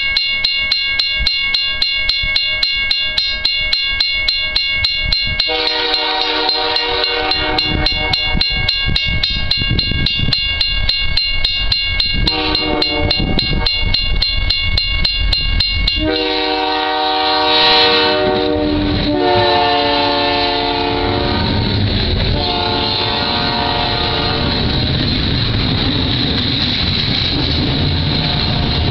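A bell rings rapidly and steadily while a freight train led by EMD SD40 diesel locomotives approaches, sounding its multi-note air horn in several long blasts. The bell stops about halfway through, and the locomotives' 16-cylinder two-stroke diesels rumble past, followed by boxcars rolling by close at hand.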